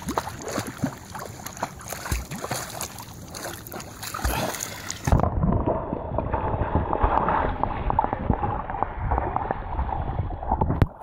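Lake water splashing and lapping at the surface close to the microphone. About five seconds in, the microphone goes underwater and the sound turns muffled: dull bubbling and gurgling with low thumps.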